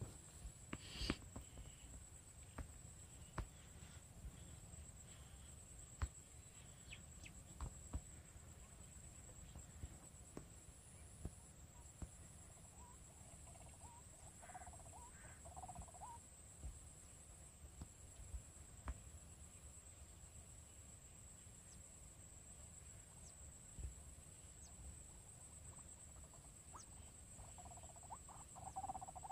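Near silence with a steady high-pitched insect drone and faint regular pulsing above it. A few faint, low bird calls come about halfway through, with scattered soft clicks.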